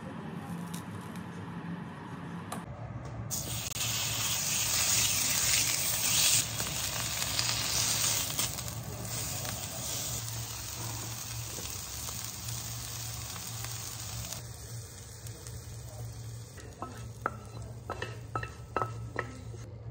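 Beef searing in a frying pan: a loud, steady sizzle that cuts in about three seconds in and drops away after about fourteen seconds. Near the end come several light metallic clinks.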